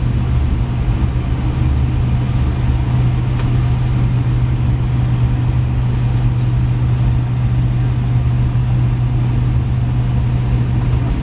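Steady low drone of an airliner's engines and airflow heard inside the passenger cabin, unchanging throughout.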